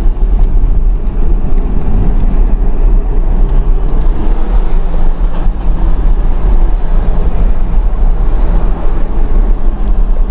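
A Porsche Cayman driving at a steady pace: its engine running under a loud, steady rumble of tyre and road noise.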